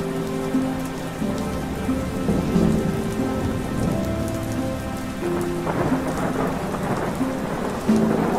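Relaxing rain-and-thunder ambience soundtrack: steady rain with a swell of rumbling thunder about five and a half seconds in, over soft held musical tones.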